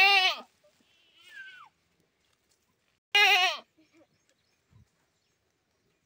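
Goat bleating twice: two loud, short bleats about three seconds apart, each wavering and falling in pitch. A much fainter falling call comes between them.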